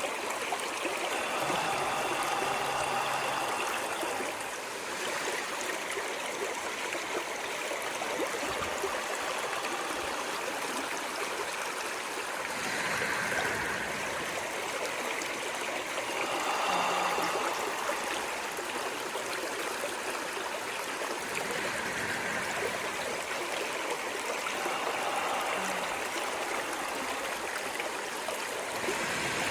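Running water of a stream, a steady rushing with soft swells every few seconds.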